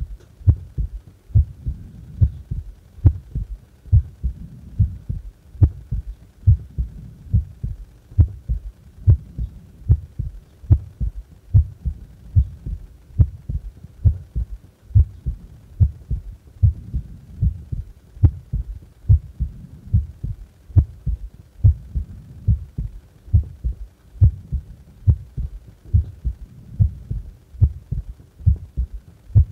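A person's heart beating at rest: a steady rhythm of low lub-dub thumps.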